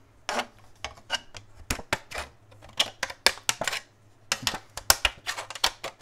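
Leatherman Raptor shears snipping through a thin tin lid: a quick, irregular run of sharp metallic snips and clicks as the blades bite into the sheet metal and the tin rattles.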